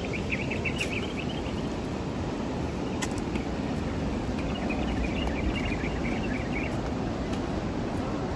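Steady outdoor background noise with a rapid, high chirping trill from an insect, heard twice: in the first second and again from about four to seven seconds in.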